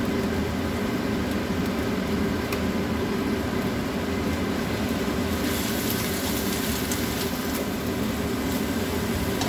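Leafy greens sizzling in a nonstick wok as they are stir-fried with a spatula, with light clicks of the spatula against the pan. Under it runs a steady hum. The sizzle grows brighter about five and a half seconds in.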